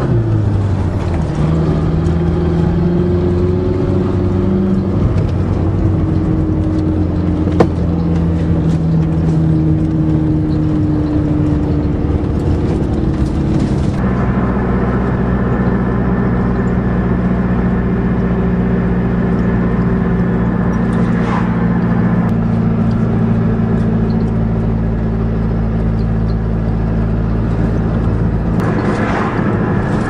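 Turbo Aries wagon's engine running while towing a loaded trailer, its pitch rising and falling through the first half, then steady from about halfway through. A single sharp click comes about eight seconds in.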